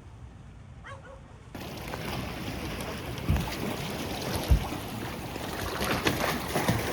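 Wind buffeting the microphone over water sloshing against a boat at anchor. It jumps louder about a second and a half in, with two heavy low wind thumps and a few small knocks near the end.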